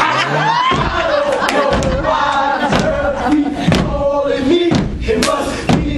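Fraternity step team performing a step routine: stomping and clapping with shouted chanting, over a noisy, cheering crowd.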